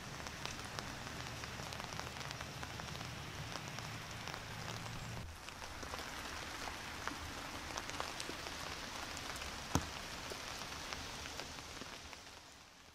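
Steady rain falling, with many small drop ticks. A low rumble underneath drops away about five seconds in, and the rain fades out near the end.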